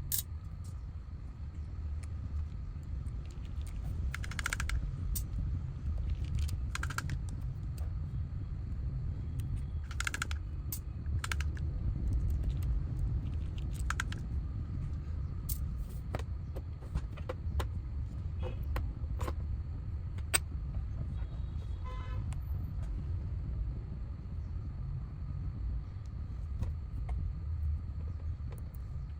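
Scattered sharp clicks and light taps, some with a short ring, of tools and parts being handled while a Bluetooth speaker is taken apart, over a steady low rumble.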